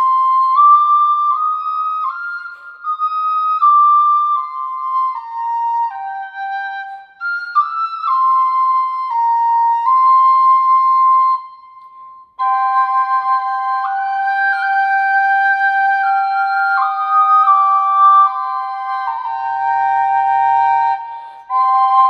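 Native American double flute (a small 'pocket flute') playing a slow stepwise melody. After a brief breath about twelve seconds in, the second pipe sounds a steady drone note beneath the melody.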